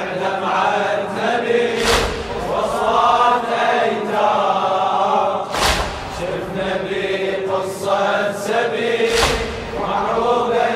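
A crowd of men chanting a Shia latmiya lament refrain in unison. About every three and a half seconds, three times, comes a loud slap struck together, which is the crowd's chest-beating (latm).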